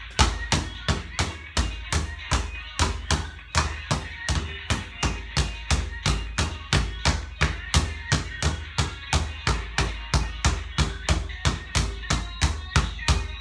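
Background music with a heavy, steady drum beat, about three and a half beats a second.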